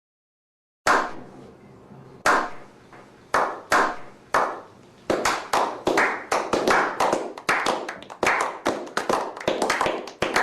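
A run of sharp taps and knocks: a few spaced hits at first, then coming quickly and irregularly.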